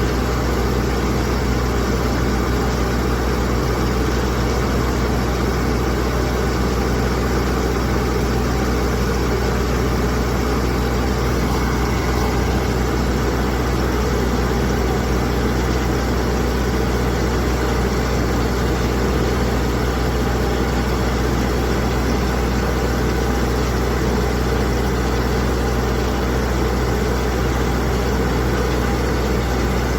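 Ship's engine running steadily, a constant low drone with no change in pitch or level.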